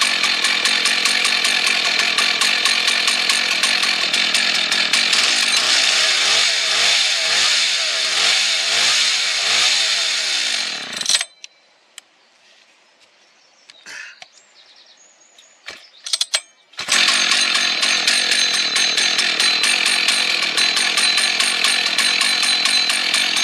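Rebuilt vintage Husqvarna 1100 two-stroke chainsaw running on its replacement 395-type carburettor, its low-speed jet just opened half a turn because the mixture seemed rich. The engine speed surges and sags, then the saw cuts out abruptly about 11 seconds in. A few seconds of near silence with a couple of clicks follow, and then the saw is running loud again.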